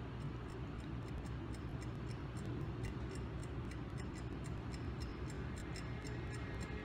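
Faint, regular clock-like ticking played back from a laptop as a music video starts, over a low room hum.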